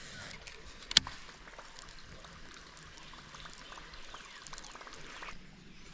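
Faint running, trickling water, with one sharp click about a second in and small scattered ticks.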